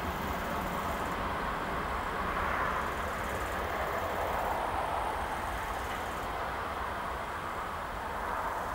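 Freight train wagons rolling away on the rails: a steady noise of wheels on track that swells and eases slightly.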